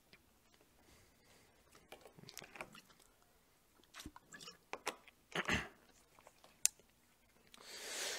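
Scattered rustling and clicking handling noises, close to a headset microphone, growing busier after the first couple of seconds, then a soft drawn-out breath near the end.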